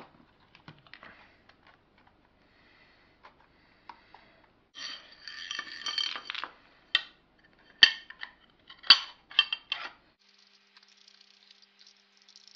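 A thin Lexan polycarbonate sheet being trimmed to size: scattered small clicks, then a crunching cut lasting about a second and a half, followed by several sharp snaps and clicks.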